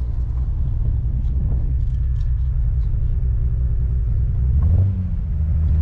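Triumph TR5's 2.5-litre straight-six engine running steadily as the car drives along, a low rumble with road noise. About four and a half seconds in the revs rise and hold a little higher.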